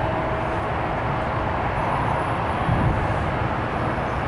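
Airbus A380's four Rolls-Royce Trent 900 jet engines at takeoff thrust during the takeoff roll: a steady, deep rumble with a hiss.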